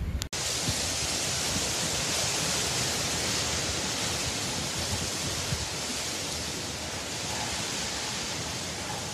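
Hurricane wind and driving rain: a steady, even rushing hiss that does not let up.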